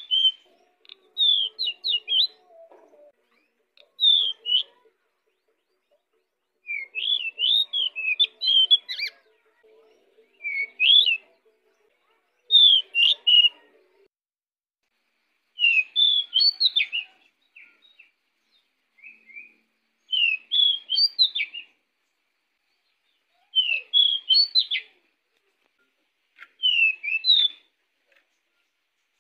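Male pied bushchat (decu) singing: short, fast, high warbled phrases of one to two seconds each, repeated about every two to three seconds with brief pauses between.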